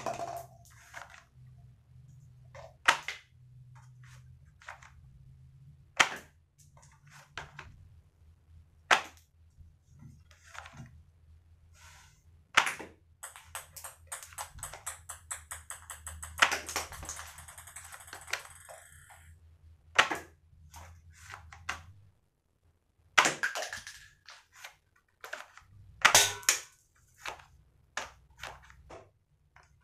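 Cardboard rubber-band toy pistol firing shot after shot: a sharp snap every few seconds, with lighter clicks of the mechanism being worked in between. There is a fast rattling stretch about halfway through.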